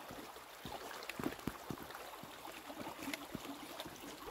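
A small stream running beside a wet dirt track, with a walker's irregular footsteps on the track.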